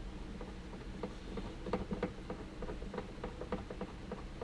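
Light, irregular metallic clicks and taps, a few a second, as a seat belt anchor bolt is fitted and threaded by hand into its mount, over a faint steady hum.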